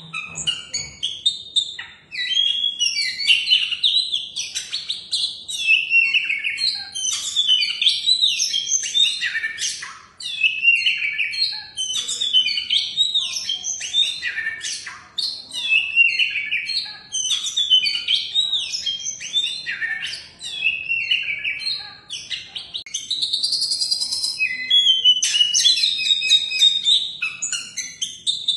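Oriental magpie-robin (kacer) singing a long, varied song of rapid whistled notes that slide up and down, mixed with short clicky notes, broken by brief pauses every few seconds.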